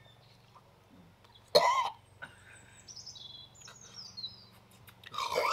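A man coughing and gagging on a big spoonful of Marmite: one harsh cough about a second and a half in and another near the end. Faint high falling chirps come between them.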